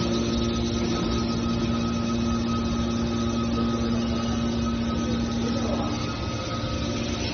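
Hydraulic metal shear baler running: a steady machine drone with a constant hum and whine from its hydraulic power unit. The hum weakens a little about five and a half seconds in.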